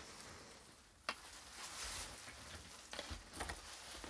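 Harvest knife worked around the inside of a plant pot through compacted soil and roots, freeing a root-bound spider plant's root ball: faint scraping and crackling, with a sharp click about a second in and a few lighter clicks near the end.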